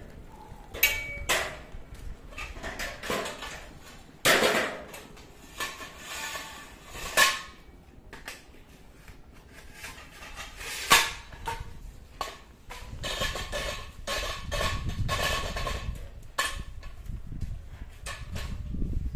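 Metal tent-frame poles clanking and knocking against each other and the frame as they are handled: irregular sharp metallic knocks, some ringing briefly, with a busier run of clatter about two-thirds of the way through.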